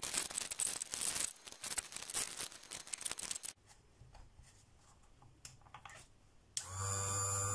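Cardboard packaging rustling and being handled for the first few seconds. About six and a half seconds in, a bench-top electric drill-bit and knife sharpener is switched on, and its motor runs with a steady hum and whine.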